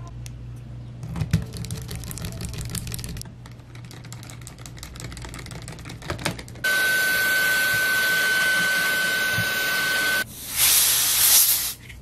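Small metallic clicks and ticks of a precision screwdriver driving screws back into a laptop's motherboard. About halfway through comes a loud steady hiss with a thin high whistle that stops suddenly after about three and a half seconds, then a shorter, louder burst of hiss near the end.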